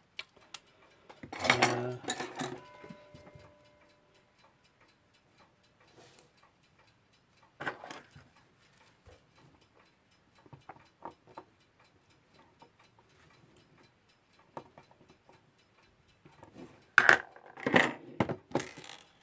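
Small metal parts and tools of a Westclox Big Ben alarm clock movement being handled, with scattered light clicks and clinks. A louder clatter with a brief metallic ring comes about two seconds in, and a burst of clattering knocks near the end.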